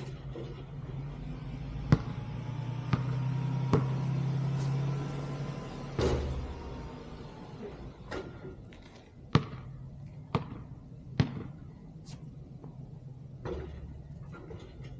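A basketball bouncing: about ten sharp single thuds and smacks, irregularly spaced, roughly a second apart, with a low steady hum under the first few seconds.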